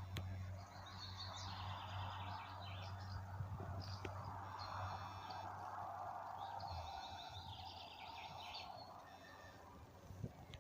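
Songbirds singing outdoors: two long song phrases of quick repeated notes, about a second in and again past the middle, with short calls between. Under them runs a steady rushing background noise and a low hum.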